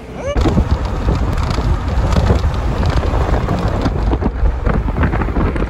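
Steady rumbling road and wind noise from a moving car, with wind buffeting the phone's microphone.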